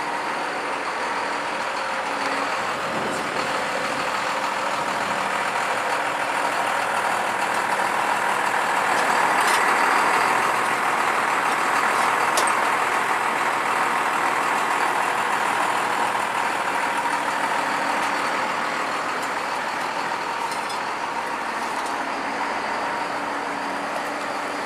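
A vehicle engine running steadily with a rushing hum, growing louder about halfway through and easing off again.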